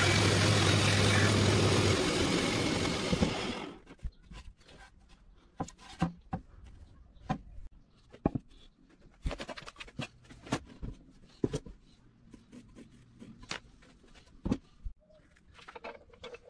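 A power tool's motor runs with a loud hiss and a steady hum, then switches off and winds down over the first few seconds. After that come scattered light knocks and clicks from the handling of wooden pieces.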